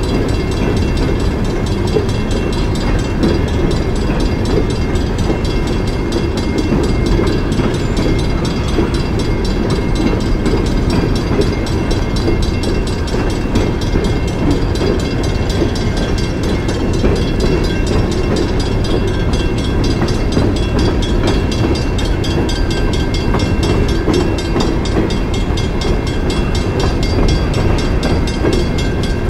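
Coal train hopper cars rolling past on the rails at steady speed: a continuous low rumble of wheels on track.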